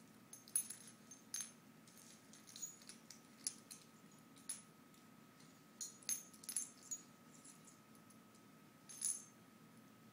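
Metal pet collar tags jingling in short, irregular clinks as the animals tussle, clustered about six seconds in with another burst near nine seconds.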